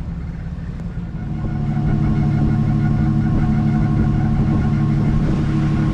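Nordhavn 50 trawler's diesel engine running steadily underway with a level, unchanging pitch. It gets louder about a second and a half in.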